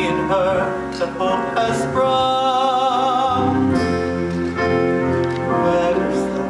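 A young man singing slow, held notes with vibrato over instrumental accompaniment, in a song from a stage musical.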